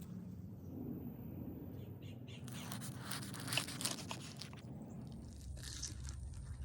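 Crisp crackling crunches of toasted sourdough bread, in two bursts of quick crackles over a low steady hum.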